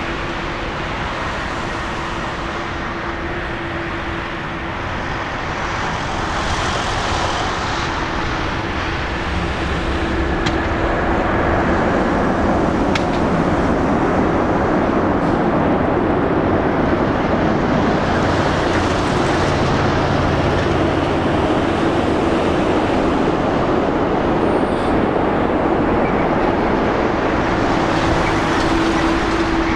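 Airbus A330 jet engines during the landing rollout just after touchdown: a steady, broad jet noise with a low hum in it. It grows louder over several seconds and stays loud, then cuts off suddenly at the end.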